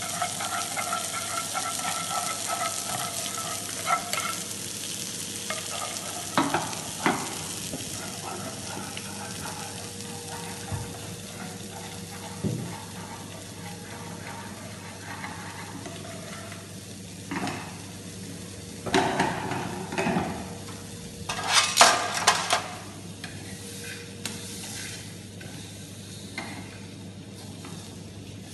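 Food sizzling in frying pans on a gas range, with metal utensils stirring and clanking against the pans now and then; the loudest clatters come about two-thirds of the way through.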